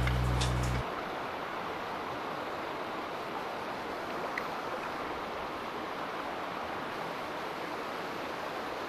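A song's music cuts off suddenly under a second in, leaving the steady rush of a shallow mountain creek running over rocks.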